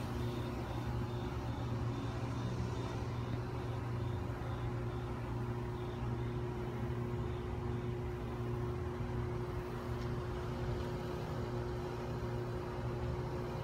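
Steady low mechanical hum with several constant tones, like a machine running nearby, with faint high pips repeating about three times a second that fade out after about seven seconds.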